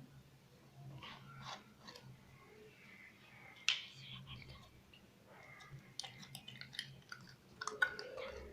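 Slime being squeezed and pressed by hand: irregular wet squishing with small crackling pops and clicks, a sharp pop about three and a half seconds in and another near the end. A faint steady low hum runs underneath.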